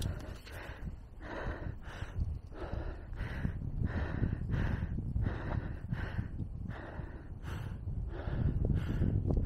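Heavy, rhythmic panting breaths of a cyclist, about two a second, out of breath after a steep uphill climb on an electric bike.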